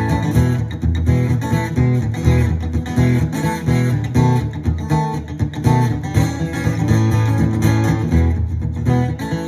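Guitar music: a strummed guitar with a steady bass line, played without singing.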